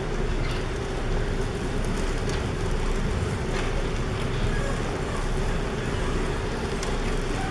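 Hushed auditorium room tone: a steady hum and hiss, with a few faint rustles and clicks from the quiet audience.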